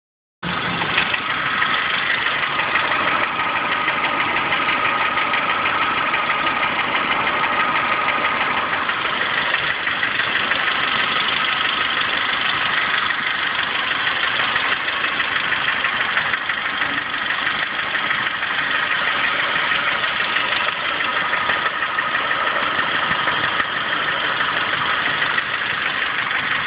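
2003 Dodge Neon SXT's four-cylinder engine idling steadily with a rapid knocking from the engine, whose cause the owner does not know.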